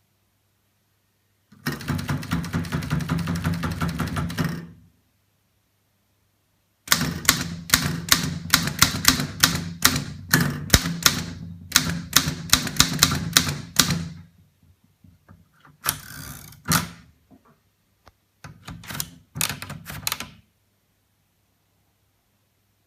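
A 1921 Underwood Standard No. 5 manual typewriter being typed on: runs of sharp key clacks as the typebars strike. There is a short run, then a longer one, then a few brief groups, with pauses between them.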